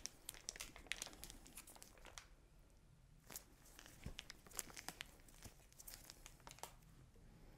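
Faint, irregular crinkling and crackling of a disposable plastic piping bag being squeezed in the hand as buttercream is piped out.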